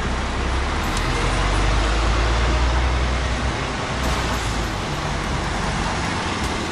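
Truck diesel engine running as the truck moves off slowly, heard from the cab along with road noise. The deep engine rumble is strong for the first three and a half seconds or so, then eases off.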